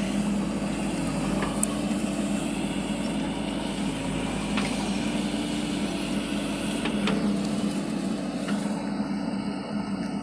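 JCB 3DX backhoe loader's diesel engine running steadily as the backhoe digs, with a strong even hum and a few faint clicks.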